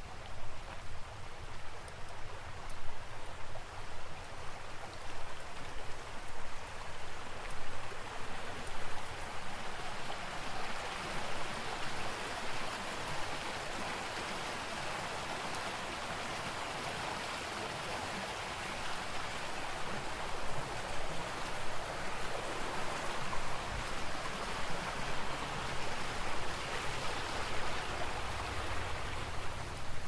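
A forest stream running with a steady rushing sound. It grows louder from about ten seconds in and eases off again near the end.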